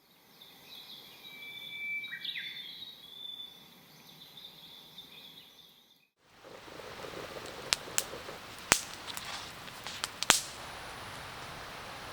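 Birds calling, with thin whistled notes and one quick sliding call. About six seconds in the sound cuts to a wood campfire burning with a steady hiss and several sharp crackling pops.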